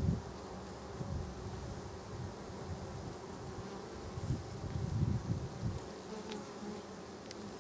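Honey bees buzzing in a steady hum around an open, crowded hive. Low rumbles on the microphone swell up about four to six seconds in.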